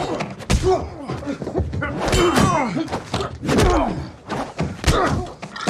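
Fight sound effects: about four heavy thuds and blows, spaced a second or so apart, each followed by short falling grunts of effort.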